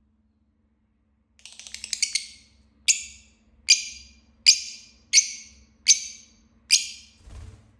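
Green Fischer's lovebird calling: a quick run of chirps about a second and a half in, then a series of sharp, high calls roughly every three-quarters of a second.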